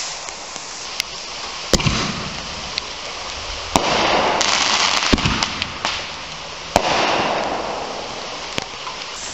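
Consumer aerial fireworks bursting overhead: about six sharp bangs spaced a second or two apart, the two loudest about four and seven seconds in, each followed by a crackling fizz.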